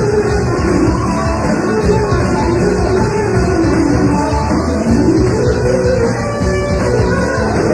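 Instrumental rock music led by electric guitar, its lead line sliding and bending up and down in pitch over a dense, steady backing.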